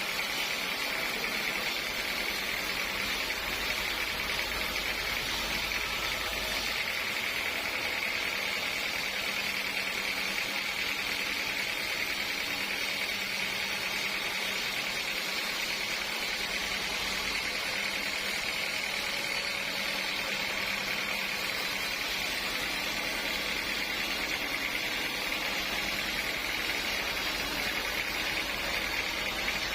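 Sawmill machinery running steadily: a constant mechanical noise with a high, even whine that does not change.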